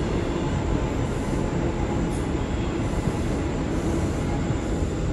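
R179 subway train running along the track: a steady rumble of wheels and motors.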